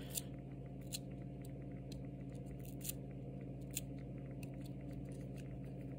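Faint scattered crinkles and clicks of a Topps Chrome card pack being torn open and its cards handled, over a steady low hum.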